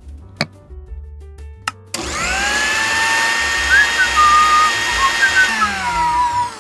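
Small electric motor of a miniature blender starting about two seconds in with a rising whine, running steadily while blending strawberries, then winding down with falling pitch near the end. A few short whistle-like tones sit over the running motor.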